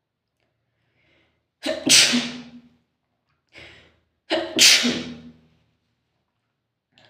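A person sneezing loudly twice, the sneezes about two and a half seconds apart, with a softer breath drawn in between them.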